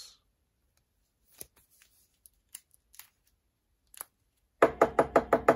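Faint light clicks and rustles of a trading card being slid into a plastic sleeve and rigid toploader. Near the end comes a much louder rapid series of knock-like taps, about seven a second.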